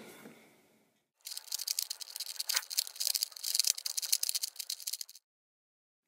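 A 2x2 puzzle cube being scrambled by hand: a dense run of quick plastic clicks as its layers are turned, starting about a second in and stopping abruptly about four seconds later.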